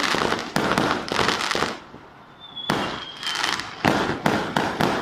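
Fireworks going off: a string of sharp bangs with crackle between them, and a thin high whistle about three seconds in.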